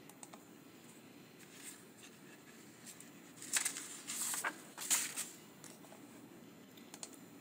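Faint room tone with a few soft computer-mouse clicks. About halfway through come two or three brief hissy rustles, the loudest sounds.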